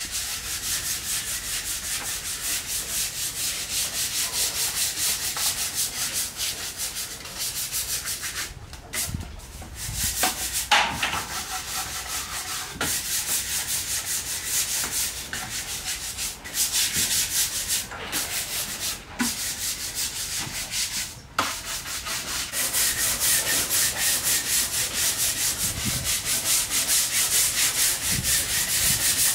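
Stiff hand scrub brush scrubbing a wet wooden tabletop, with rapid back-and-forth strokes at about three a second and a few short breaks.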